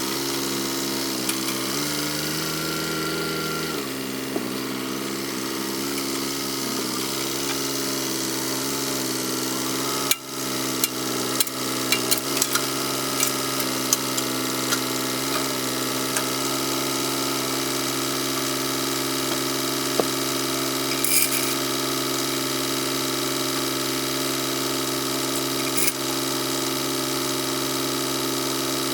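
An engine idling steadily, its pitch shifting briefly a couple of seconds in, with a run of sharp knocks and clicks over the engine about a third of the way through and a few more later.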